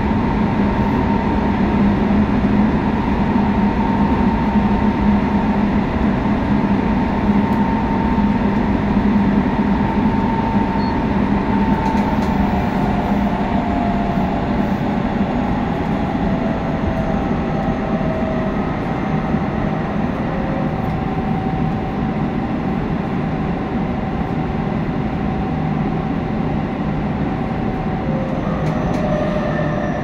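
Running noise of Tobu train set 9152 on the subway, heard from inside the car, with the whine of its GTO-VVVF traction inverter over a steady rumble and hum. Partway through, several whine tones slide slowly down in pitch, and near the end a fresh set of tones comes in.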